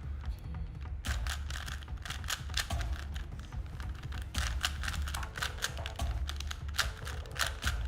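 Plastic Rubik's Cube being turned fast by hand: a rapid, uneven run of clicks and clacks as its layers snap round, starting about a second in.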